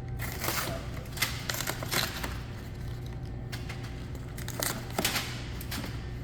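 A cardboard case of soda cans being opened and the cans handled: a series of short tears, scrapes and clinks in two clusters, one near the start and one about five seconds in.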